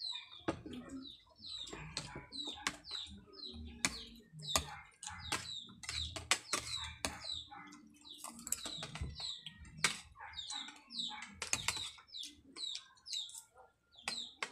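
Birds chirping again and again in quick chirps that fall in pitch, with sharp clicks of spoons and forks against plates as people eat.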